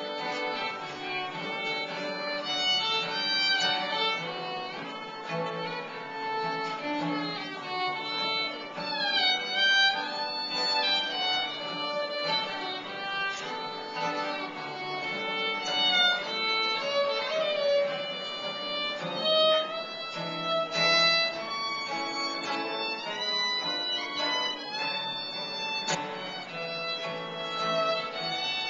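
Fiddle playing a quick old-time contest tune, with acoustic guitar strumming the accompaniment. A few sliding notes come about a third of the way in.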